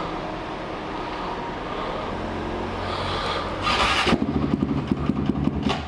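Motorcycle engine and street traffic noise, steady at first. About four seconds in there is a loud rushing burst, followed by a fast, uneven pulsing engine sound.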